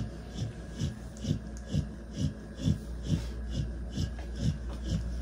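American bully dam panting in a steady rhythm, about two breaths a second, over a constant low hum.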